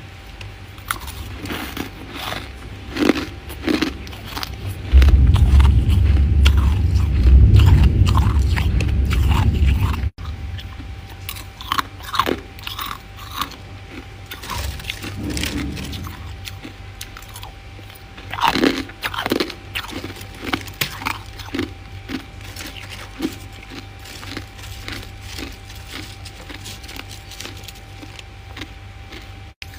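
Freezer frost being bitten and chewed close to the microphone: dense crisp crunches throughout, with a heavy low rumble for several seconds starting about five seconds in.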